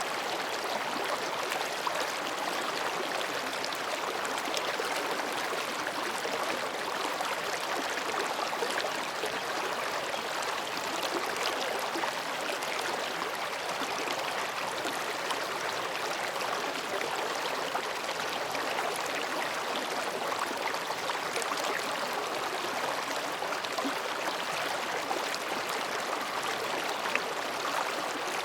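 Mountain stream babbling steadily as it flows between rocks: an even, unbroken rush of water.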